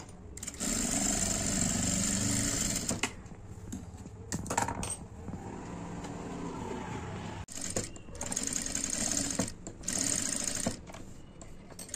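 Industrial single-needle sewing machine stitching in short runs: one of about two and a half seconds near the start, then after a pause two shorter runs near the end.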